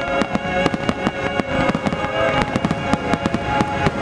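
A rapid barrage of fireworks bangs and crackles, several a second, over the show's music playing steadily from loudspeakers.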